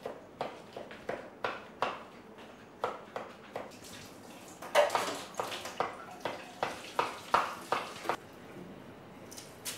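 Knife chopping on a wooden cutting board: a run of sharp knocks, about two to three a second, with a short break about three seconds in, stopping a little after eight seconds in.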